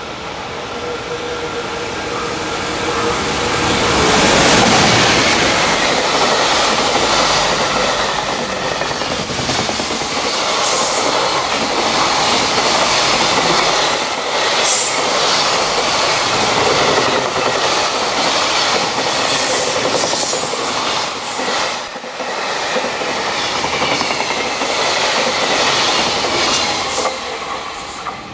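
An EF210 electric locomotive hauling a long container freight train passes at speed. Its steady hum rises to a peak as it goes by about four seconds in, followed by a long rumble of container wagons with clattering wheels on the rail joints. A high, thin wheel squeal comes in about two-thirds of the way through.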